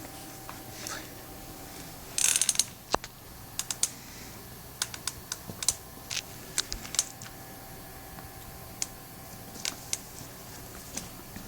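Wood fire crackling in a fireplace: irregular sharp pops and snaps, with a quick run of crackles about two seconds in, over a faint steady hum.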